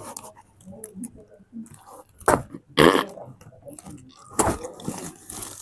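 Short, breathy vocal sounds from a woman being massaged: three or four brief bursts spread over a few seconds, like coughs or grunts.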